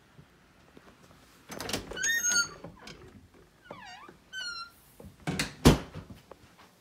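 A closet door being opened, with scraping and a series of high squeaks from its track or hinges, then a loud knock near the end.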